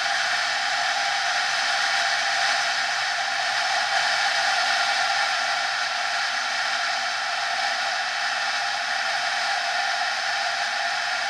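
Honda NSR 50's small two-stroke engine running steadily at cruising speed, with a constant rush of riding wind.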